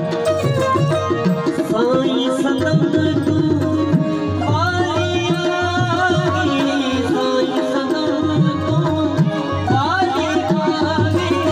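Sindhi devotional folk music: a benju, a keyed Indian banjo, plays a melody with sliding runs over steady tabla drumming and harmonium.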